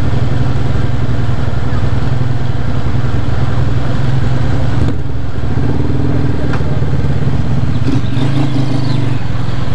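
Honda CG Fan 125's single-cylinder four-stroke engine running at low speed in a queue of traffic, moving off slowly about halfway through, with another motorcycle's engine just ahead.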